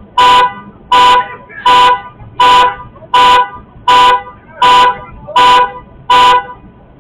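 Car horn blaring in a steady, even on-off pattern, nine short blasts at the same pitch about three quarters of a second apart, as a car alarm sounds. It breaks off near the end and then starts again.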